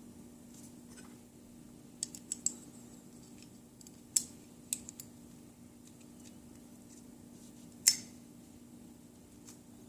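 Metal parts of an AR-15 rifle clicking and clinking as they are handled and fitted together. There is a quick cluster of sharp clicks about two seconds in, a few more around four to five seconds, and the loudest single click near eight seconds.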